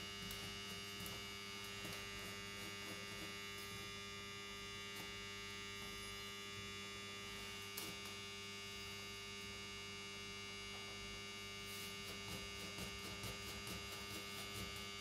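Steady electrical hum, with a few faint light clicks about eight seconds in and again near the end.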